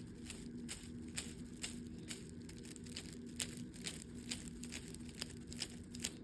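Faint, irregular crinkling and small clicks of a stretchy toy ball being squeezed and handled, over a steady faint hum.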